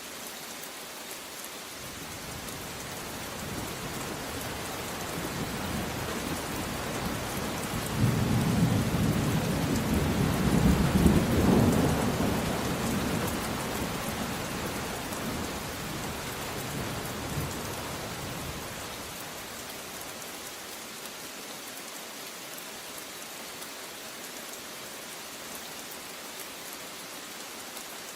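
Steady rain with one long roll of thunder that builds a few seconds in, breaks loudest near the middle, and rumbles away well before the end.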